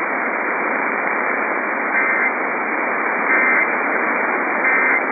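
Loud, steady radio static hiss, with three short bursts of warbling EAS digital data tones about 1.3 seconds apart. These are the SAME end-of-message code that closes an Emergency Alert System broadcast.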